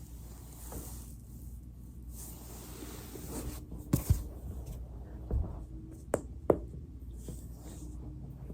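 A body shifting on a foam roller with soft rubbing and rustling, then joints cracking about halfway through: two quick sharp pops, a duller thud, and two more sharp pops.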